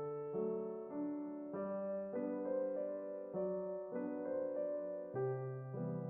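Background music: soft electric piano or keyboard playing slow sustained chords.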